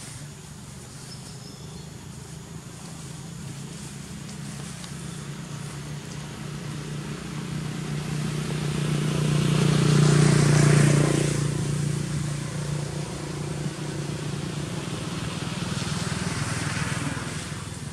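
A motor vehicle's engine passing by, growing louder to a peak about ten seconds in and then fading, with a second, smaller swell near the end.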